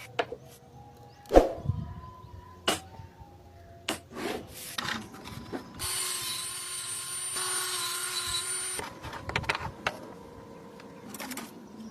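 Woodworking sounds: sharp knocks and taps on wood, the loudest about a second and a half in, and a power tool running steadily for about three seconds in the middle.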